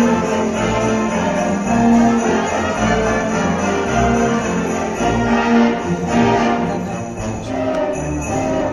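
Orchestra and wind ensemble playing a Christmas piece, with brass and a steady shake of sleigh bells over the melody.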